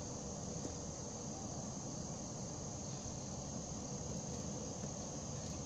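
Insects chirring steadily in the background as one continuous high-pitched drone, with a low rumble of outdoor noise beneath.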